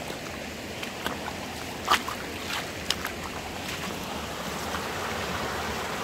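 River water rushing steadily over stones, with a few sharp clicks on top, the loudest about two seconds in.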